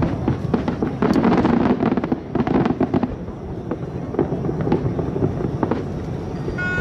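Aerial fireworks going off in rapid volleys of bangs and crackles over a low rumble, densest about a second in. A steady high tone starts just at the end.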